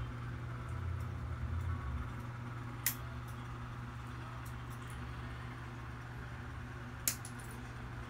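Steady low hum of room tone, with two short sharp clicks about four seconds apart.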